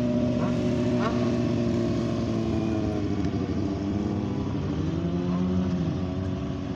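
Motorcycle engines running, a steady engine note whose pitch dips and rises again about halfway through as a bike rides past, with a couple of short revs in the first second.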